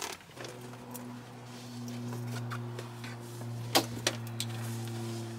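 A steady, low electric hum in a car, starting about half a second in and cutting off suddenly at the end, with a couple of light clicks partway through.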